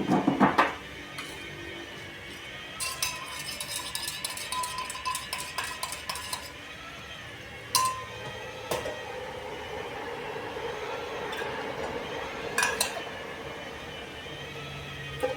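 Light metallic clinks and clattering: a loud jangle at the start, a run of rapid ticking for a few seconds, then a few single sharp clicks.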